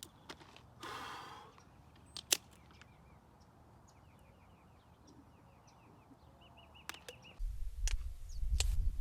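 Quiet outdoor background with a sharp click about two seconds in and a run of quick, repeated high bird chirps. Near the end, after a cut, wind starts rumbling on the microphone.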